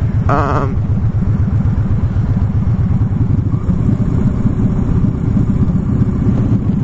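Victory Highball's V-twin engine running steadily under way at highway speed, a dense low pulsing exhaust rumble heard from the rider's seat. A brief wavering higher-pitched sound cuts in at the start.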